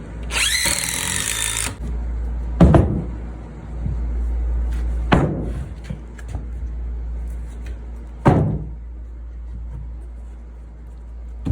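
A cordless power drill runs for about a second and a half with a rising whine, then three sharp wooden knocks a few seconds apart, over a steady low hum.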